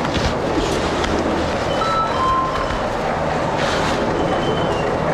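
Chairlift terminal machinery running with a steady hum and rumble, with a few short, high metallic squeals, as skis scrape over the snow on the loading ramp.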